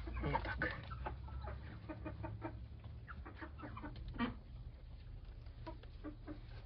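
Chickens clucking, mixed with many short rustles and taps.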